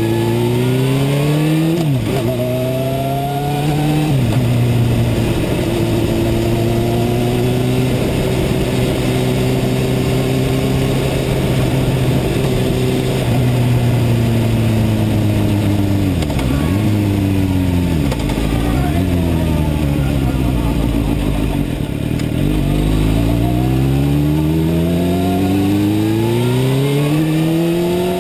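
2002 Suzuki GSX-R 750 (K2) inline-four engine pulling hard, its revs rising and then dropping sharply with two quick upshifts about two and four seconds in. It then holds a steady cruise. About sixteen to eighteen seconds in, the revs dip sharply twice, and the engine runs low for a few seconds before climbing through the revs again near the end.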